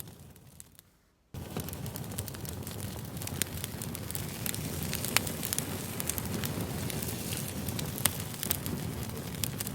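Campfire crackling: a steady low rush of burning with sharp pops scattered through it. About a second in it fades away to almost nothing, then cuts back in abruptly.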